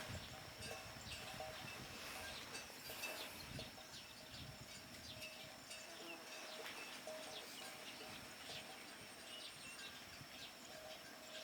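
Faint wetland ambience: a steady high insect drone with many short bird chirps and ticks over it, and a few soft low thuds in the first seconds.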